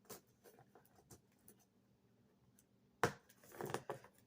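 Hands handling a shipping box and its packing-slip envelope: a few faint taps, then a sharp click about three seconds in followed by a brief rustle.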